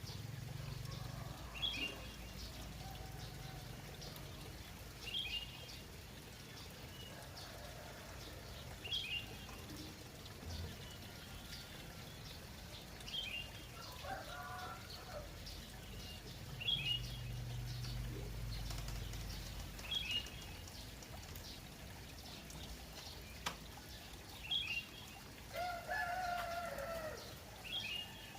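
Trickling water runs steadily under birds chirping. One bird repeats a short call every few seconds, and a rooster crows twice: about halfway through and again near the end.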